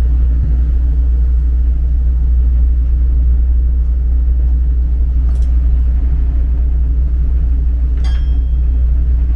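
Steady low rumble of a ship's engines and machinery, unchanging throughout, with a couple of light clicks about halfway through and again near the end.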